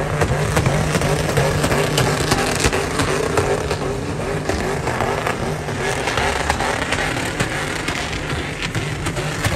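Pickup truck engines held at high revs with their rear tyres spinning through burnout doughnuts, making a loud, steady noise.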